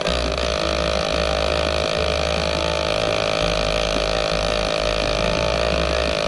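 Homemade helicopter's engine running, loud and steady, with an uneven low chugging.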